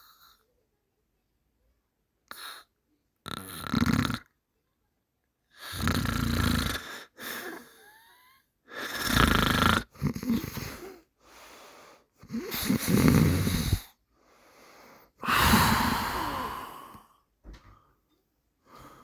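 A person snoring, five loud snores about every three seconds with quieter breaths between them.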